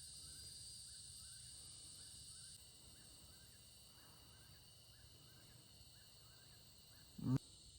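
Faint outdoor insect chorus: a steady high-pitched buzzing, with small chirps repeating about twice a second. About seven seconds in, a short voice sound rises briefly above it.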